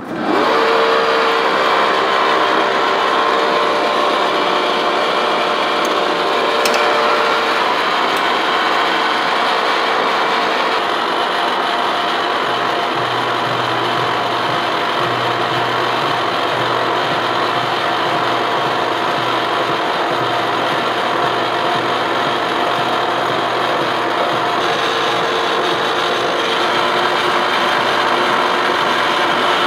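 Lucas 441B-48 horizontal boring mill's 8-inch face mill cutting across an angle plate: a light finishing pass, 5 thou deep at a slowed feed for a smoother finish. A loud, steady cutting noise sets in suddenly at the start. A low, pulsing hum joins in about halfway through.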